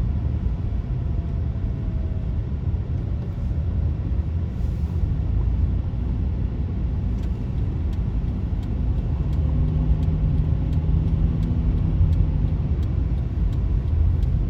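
Steady low road rumble of a car being driven, heard from inside the vehicle. A faint engine hum rises into it about two-thirds of the way in, and a few faint ticks come in the second half.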